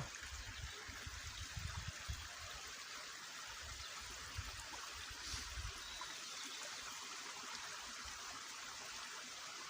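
Faint, steady rush of flowing water, like a hillside stream. Low, uneven rumbling on the microphone dies away about six seconds in.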